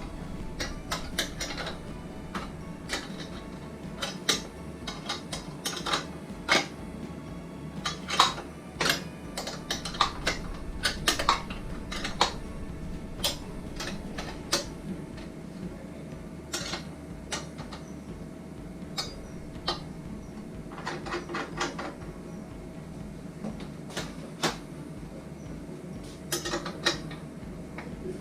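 Metal parts of a meat slicer clinking and knocking as they are handled: irregular sharp clicks and taps, some in quick clusters.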